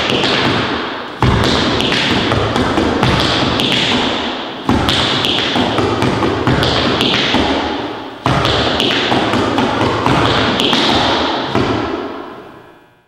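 Tap shoes striking a wooden floor in a fast, dense run of taps and heavier stamps, with a loud hit about a second in and again around five and eight seconds in. The dancing stops near the end and the sound fades away.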